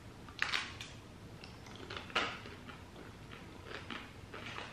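Bites into Klondike Krunch chocolate-coated ice cream bars: the thin chocolate shell snaps sharply twice, about half a second and two seconds in, followed by softer crackling as it is chewed.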